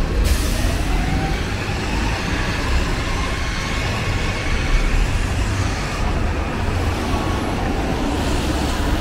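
City street traffic on wet pavement: vehicles passing with a steady tyre hiss and engine rumble. The hiss swells just after the start and eases off about six seconds in.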